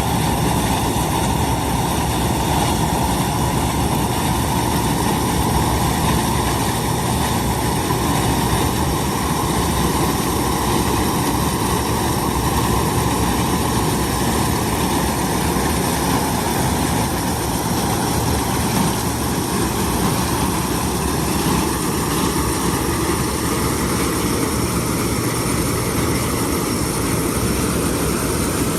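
Large farm harvesting machinery running steadily while harvesting corn: a continuous heavy mechanical drone with faint steady whines above it.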